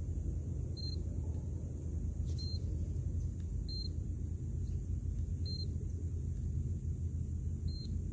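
A steady low rumble with five short, high-pitched beeps at uneven intervals, each a second and a half to two seconds apart.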